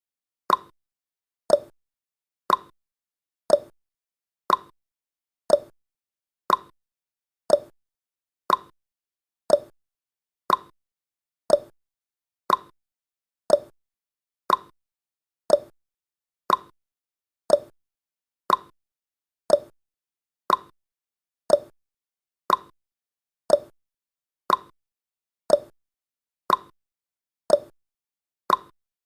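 Countdown timer's ticking sound effect: one short, sharp tick every second, each dying away quickly, marking off the seconds.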